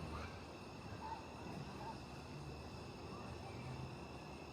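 Faint, steady trilling of summer night insects such as crickets, with a few short chirps and a low rumble underneath.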